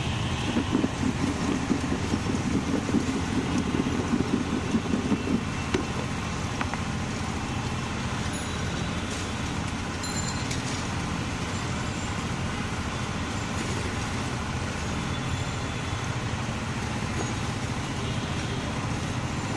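Pineapple chunks shaken rapidly in a lidded plastic bowl to mix in salt, for about five seconds. After that, steady street traffic noise.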